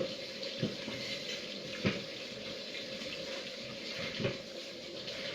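Water running steadily, with a few short knocks.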